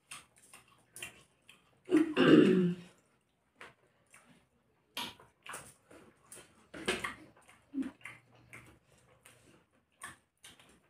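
Close mouth sounds of two people eating rice and fish curry by hand: irregular chewing, lip smacks and wet clicks. A short, louder vocal sound comes about two seconds in.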